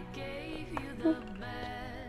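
A pink battery-powered toy cellphone playing a soft, sing-song electronic tune.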